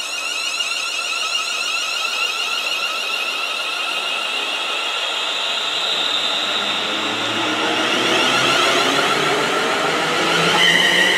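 ScotRail Class 380 electric multiple unit pulling away from the platform, its traction equipment giving a whine of several tones that slowly rises in pitch and grows louder as it gathers speed. About ten and a half seconds in, the tones jump up in pitch.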